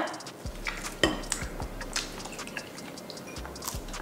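Scattered light clicks and taps of chopsticks against plates and bowls during a meal.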